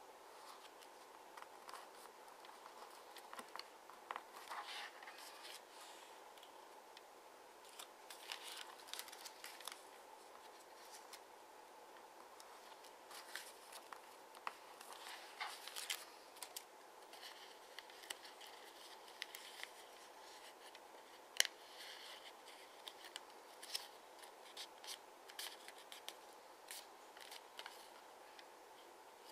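A sheet of double-sided origami paper being folded and creased by hand: faint, intermittent rustling and crinkling, with sharp crackles as folds are pressed flat and one louder snap about two-thirds of the way through.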